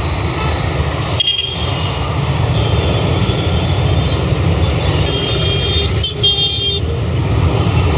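Busy road traffic: a steady rumble of passing engines and tyres, with vehicle horns honking several times, mostly in the middle and later part.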